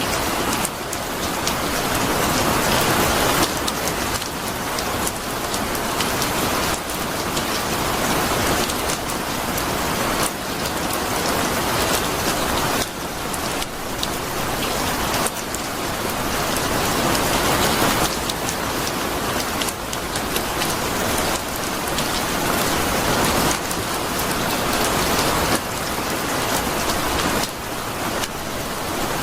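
Steady rain falling, a dense hiss full of fine drop patter, swelling and easing every few seconds.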